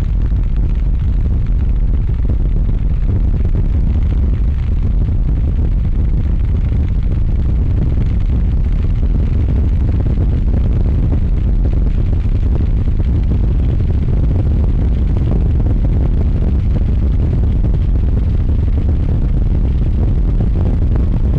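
Strong wind buffeting the microphone: a loud, steady low rumble with no clear engine note standing out above it.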